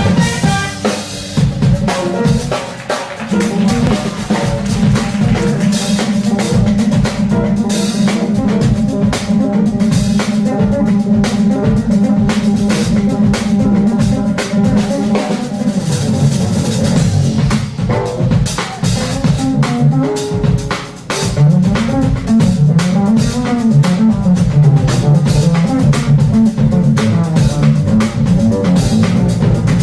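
A jazz band playing live, led by an upright double bass with a drum kit keeping time. The bass line moves up and down more clearly in the second half.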